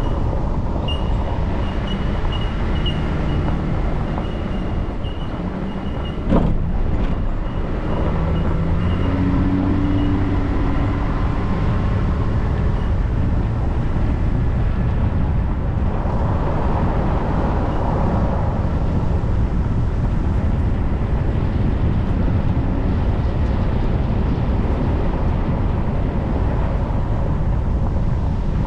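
A vehicle driving on a dirt gravel road: a steady rumble of engine and tyres on the loose surface, with one sharp knock about six seconds in.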